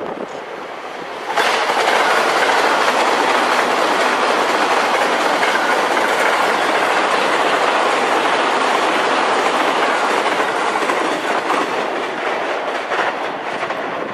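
Train passing at speed, its wheels clattering over the rail joints in a loud, steady rush that starts suddenly and eases off near the end.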